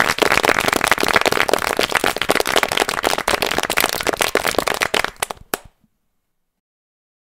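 Loud, dense crackling made of many rapid pops, continuing without a break for about six seconds and then cutting off abruptly.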